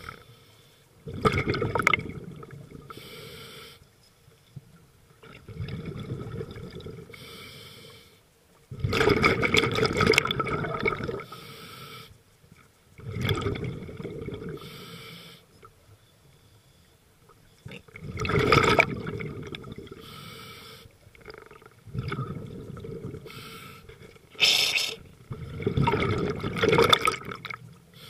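Scuba diver breathing through a regulator underwater. A hissing inhale is followed each time by a rush of exhaled bubbles, and the cycle repeats about every four seconds.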